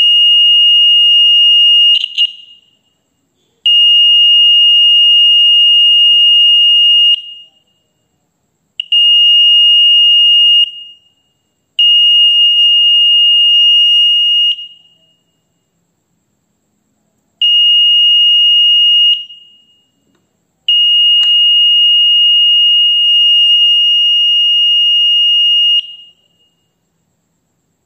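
SFM-27 piezo buzzer of a homemade MOSFET bike-alarm circuit sounding a steady, high-pitched continuous tone, switched on and off six times. The bursts last from about one and a half to five seconds, and each one cuts off quickly as the circuit is tested.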